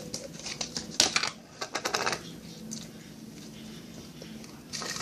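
Slime being squeezed and handled, giving quick sticky clicks and pops in clusters, busiest about a second in and again near the end.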